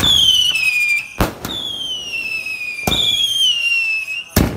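Multi-shot whistling firework cake firing: shrill whistles that fall slightly in pitch, each lasting about a second and a half, broken by sharp bangs about every one and a half seconds, three bangs in all.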